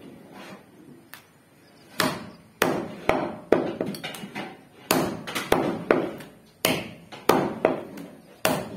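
Meat cleaver chopping goat meat on a wooden log chopping block: a run of sharp, uneven chops, about two a second, starting about two seconds in.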